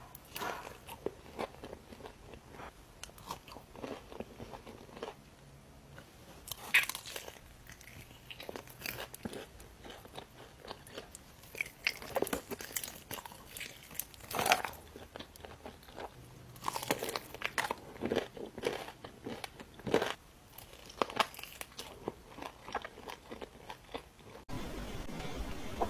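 A person eating fast food close to the microphone: separate crisp bites and crunchy chewing, a few seconds apart.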